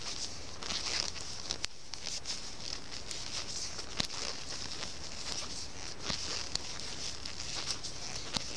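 Circular knitting needles clicking and tapping irregularly as knit stitches are worked, with yarn and fabric rustling under the fingers, over a steady hiss.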